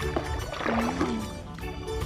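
Background music with a steady bass line and held notes.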